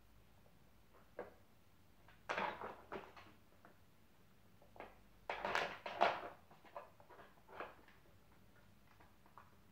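Dog nosing and pawing at a round Dog Twister treat puzzle: short scraping and clattering sounds from the puzzle's parts being pushed, in two louder clusters about two and five seconds in, with scattered small clicks after.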